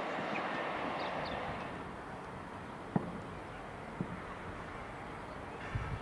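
The noise of a train that has just passed through the station fades away over the first two seconds. A low steady background follows, with two short knocks about three and four seconds in.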